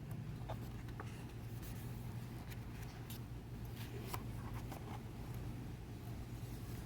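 Pages of a heavy hardbound photobook being handled and turned: scattered soft paper taps and rustles, faint, over a steady low hum.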